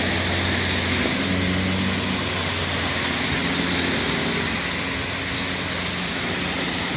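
A vehicle's engine running steadily on the move, under a constant hiss of road and wind noise.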